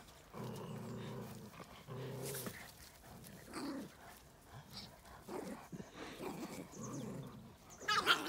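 Small dogs growling in play as they chase each other over grass, in several low rumbling spells of up to a second each, with a short, sharp, louder cry near the end.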